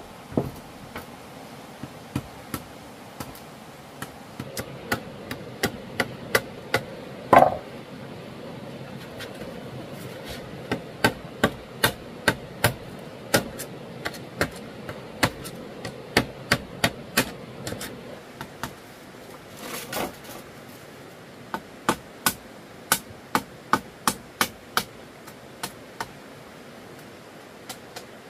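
A hand tool striking wood again and again in runs of sharp knocks, about one or two a second, with short pauses between runs. The loudest blow, about seven seconds in, rings briefly.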